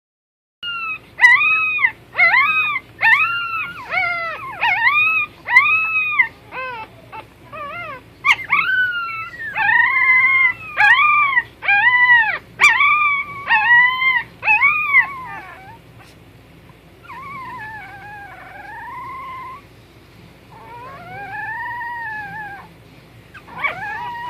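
Puppies whining and yelping: a quick run of short, high, arching whines, about two a second, then after about fifteen seconds a few longer, wavering, quieter cries.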